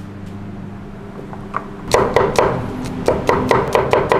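Cleaver chopping a pile of raw spice roots, garlic and shallots on a wooden board, mincing them by hand for Balinese bumbu genep paste. Fast, even strikes start about two seconds in, about five a second.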